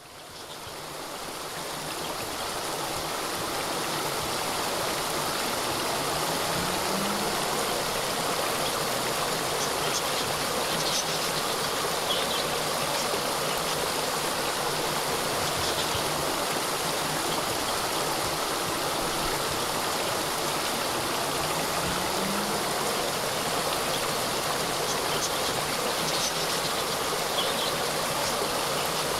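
A small waterfall splashing and running steadily, fading in over the first few seconds.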